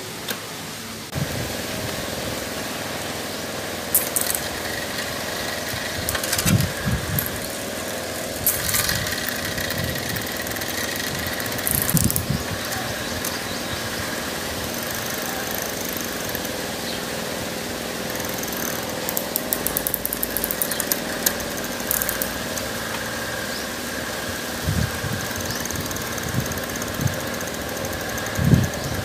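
Bicycle drivetrain cranked by hand on a six-speed rear wheel: the chain runs steadily over the sprockets with a whirring rattle, broken by sharp clicks and knocks as gears are shifted. Near the end of the second third comes a run of rapid ticking, typical of a freewheel ratchet as the wheel coasts.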